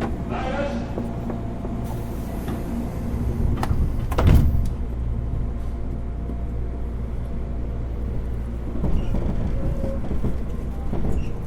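Inside a JR East 205-series commuter train car: the passenger doors slide shut, ending in a loud thump about four seconds in, over the car's steady low hum.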